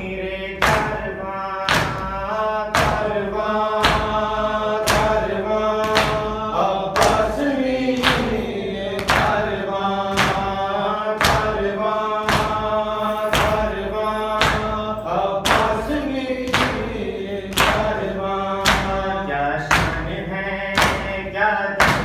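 A man chanting a Shia mourning lament (latmiya) into a microphone while the mourners beat their chests in a steady rhythm of hand slaps (matam).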